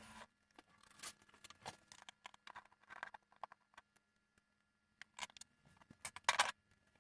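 Range hood parts being handled: a string of light clicks, knocks and short scrapes, with a louder clatter about six seconds in, over a faint steady hum.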